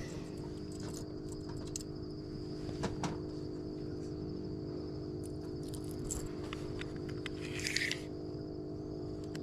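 Crickets trilling steadily over a constant machine hum, with a few small clicks and knocks.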